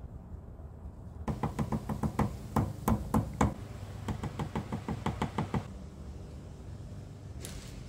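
A container of sawdust tapped in a quick run of light knocks, about five a second for some four seconds, shaking sawdust onto wet wood glue to fill a seam. A brief rustle follows near the end.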